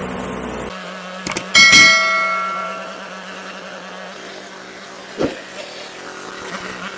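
Snow blower engine running, which gives way abruptly under a second in to a steady low hum. About a second and a half in, a loud metallic clang rings out and fades over about a second, and a short thump follows near the end.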